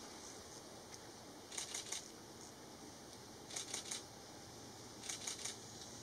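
Camera shutter firing in three quick bursts of three or four frames each, about two seconds apart.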